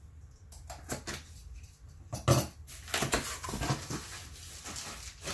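Handling noise of a hard plastic graded-comic slab and its packaging: a string of short clicks and clattering knocks, the loudest about two seconds in.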